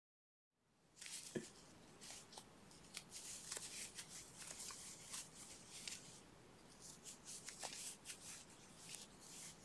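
Faint rustling of yarn with small, irregular scratchy clicks as a crochet hook is worked through stitch after stitch by hand, starting about half a second in.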